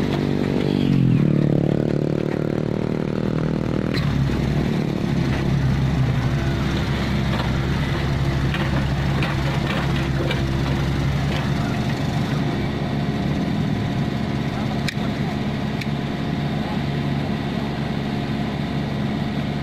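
Komatsu PC45MR mini excavator's diesel engine running under hydraulic load while digging and moving. It rises in pitch and loudness for a few seconds about a second in, then runs steadily.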